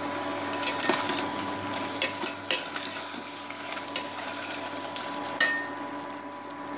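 Perforated steel ladle scraping and knocking against a stainless steel pot as mutton biryani masala is stirred, with several sharp metal clinks. The loudest clink comes near the end and rings briefly. A steady hum runs underneath.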